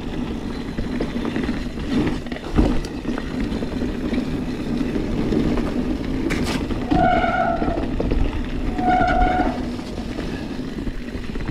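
Mountain bike rolling over a gravel trail with wind and tyre noise and a few knocks from the rough ground, then two short pitched squeals, one about seven seconds in and another about nine seconds in. The squeals are typical of disc brakes that are still bedding in.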